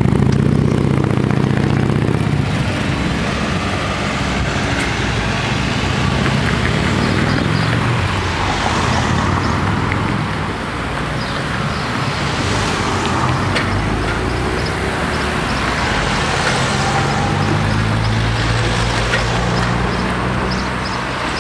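A motorcycle engine pulling away at the start, then a stream of cars and a van driving past close by, their engine and tyre noise rising and falling as each one passes.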